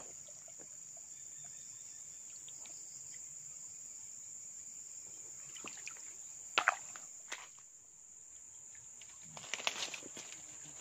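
Insects droning steadily at a high pitch, with two sharp clicks a little past the middle and rustling footsteps in leaf litter near the end.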